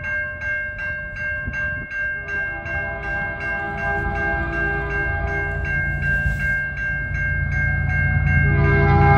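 Railway crossing bell ringing about twice a second while the crossing signals flash. From about two seconds in, an approaching CN freight train's horn sounds in long blasts for the crossing, over a low locomotive rumble that grows louder toward the end.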